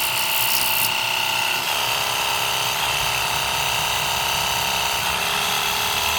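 Cordless battery-powered 850 PSI pressure washer's electric pump motor running on its level 2 setting while spraying water: a steady whine that steps down slightly in pitch a few times.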